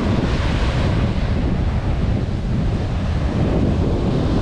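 Ocean waves breaking and washing up the shore, with wind buffeting the microphone.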